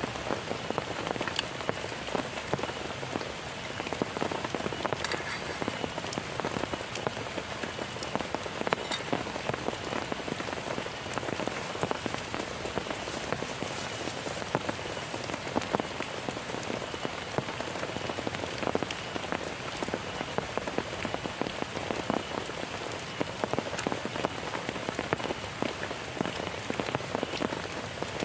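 Heavy rain falling steadily, with a constant dense patter of many sharp individual drop strikes.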